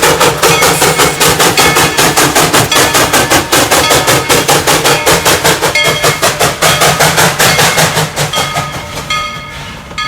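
Coal-fired Baldwin 2-8-2 steam locomotive working, its exhaust chuffing in a fast, even beat of about four to five chuffs a second. The beat fades over the last couple of seconds.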